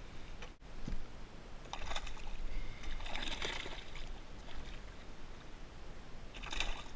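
A hooked tuna splashing at the surface beside a kayak's hull as it is drawn in on the line. The splashing comes in three short bursts, the strongest about three seconds in.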